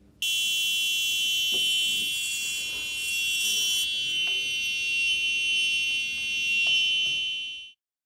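Buzzer on a carbon monoxide alarm board sounding one continuous high-pitched alarm tone, signalling that the gas alarm has been triggered. It starts a moment in and fades out near the end.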